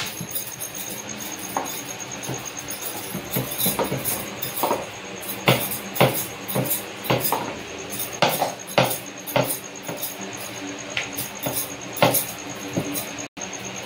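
Wooden rolling pin knocking and clattering on a round rolling board as roti dough is rolled out, giving irregular sharp clicks and taps.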